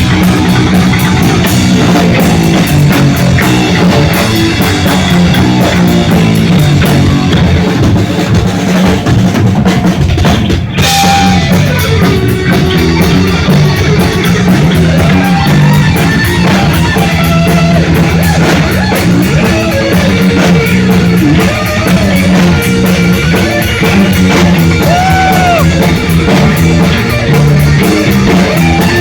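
Live heavy metal played loud by a full band: drum kit with steady cymbal hits under distorted electric guitar and bass.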